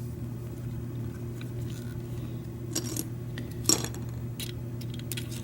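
Scattered light metallic clicks and clinks from handling a Schlage F-Series door knob lock, two of them sharper about three and nearly four seconds in, over a steady low hum.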